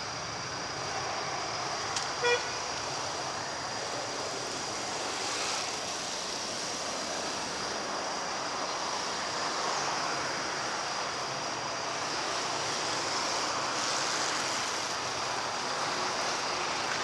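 A short vehicle-horn toot about two seconds in, over a steady background of traffic-like noise.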